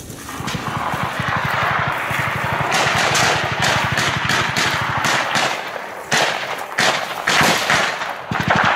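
Automatic small-arms fire in rapid bursts, with many sharp separate shots crowding in from about three seconds on.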